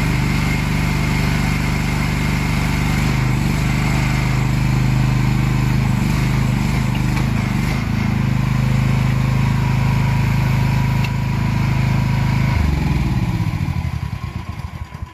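Single-cylinder engine of a 1-ton mini excavator running steadily, then shut off about 12 seconds in, its beat slowing as it runs down to a stop.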